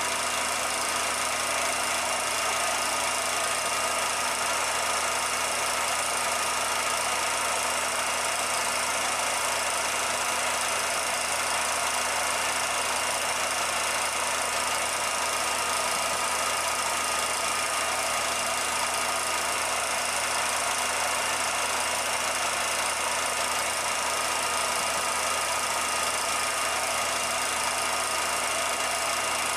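A 16mm film projector running: a steady mechanical whir with a few constant tones over it.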